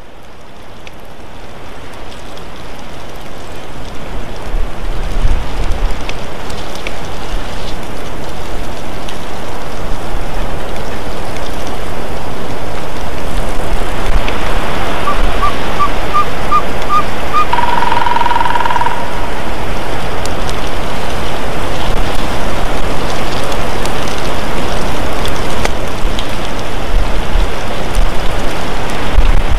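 Loud steady rushing noise on an outdoor nest-camera microphone, swelling over the first several seconds, with occasional low rumbling bumps. About halfway through, a bird calls: a quick run of about six short high notes, then one longer held note.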